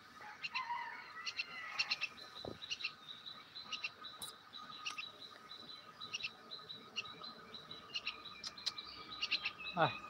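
Jungle myna calling with short, high chirps repeated every half second or so, over a faint steady high tone. Near the end comes a quick downward-sweeping sound.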